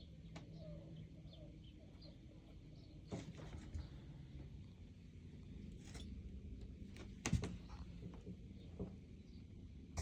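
Quiet room noise with a low steady hum, broken by a few sharp knocks and clicks, the loudest about seven seconds in. Faint short high chirps come in the first few seconds.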